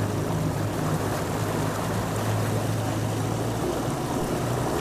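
Small outboard motor on an aluminium boat running steadily at low speed, a constant low drone, with water moving past the hull.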